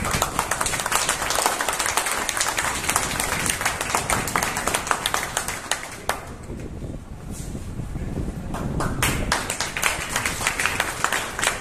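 Audience clapping, many hands at once. It thins out for a couple of seconds around the middle, then picks up again.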